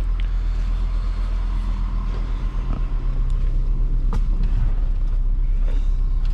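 Vehicle engine idling steadily, a low even hum, with a few light clicks over it.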